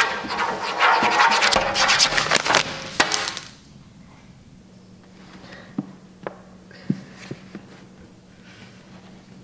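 Pen scribbling fast across paper photos, a dense scratching that stops about three and a half seconds in. After that comes a faint steady low hum with a few light clicks.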